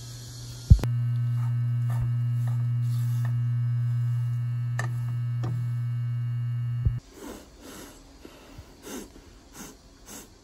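Steady low electrical hum with a few light clicks over it, starting abruptly just under a second in and cutting off about seven seconds in; after that only faint, scattered light clinks and scrapes.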